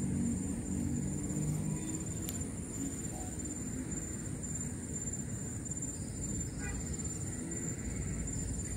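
Steady high-pitched chirring of crickets or similar insects over a low steady rumble; a motor's hum fades out in the first couple of seconds.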